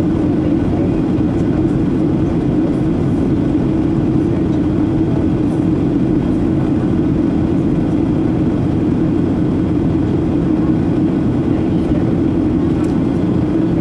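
Steady cabin noise of a Boeing 737-800 in descent, heard from a window seat beside the wing: its CFM56-7B engines and the airflow make an even, unbroken drone with a strong low hum.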